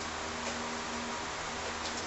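Steady hiss with a faint hum, the noise floor of room tone on a small camera's microphone, with a faint tick about half a second in and a few faint ticks near the end.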